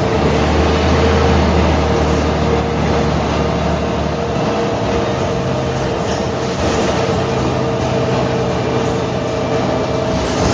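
Mercedes-Benz O345 Türk city bus running, its diesel engine giving a low drone with a steady whine over road noise. The low drone eases about four seconds in.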